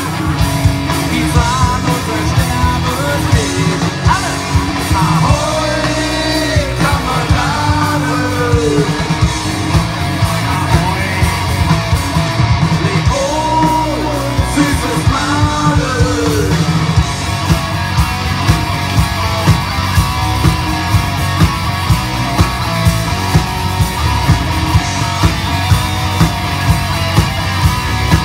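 Live rock band playing through a PA, with shouted singing over guitar, bass and drums. The singing stops about two-thirds of the way through and the band plays on with a steady, driving drum beat.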